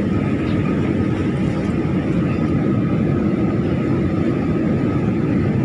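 Steady cabin noise of a passenger airliner in flight: a dense, even low rumble with a faint steady high tone above it.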